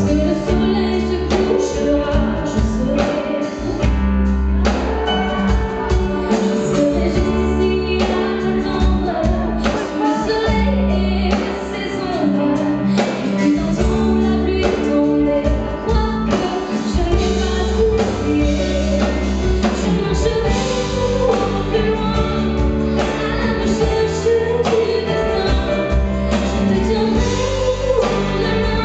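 A woman singing into a microphone with a live band: electric guitar and keyboard behind her voice, over a steady bass and beat.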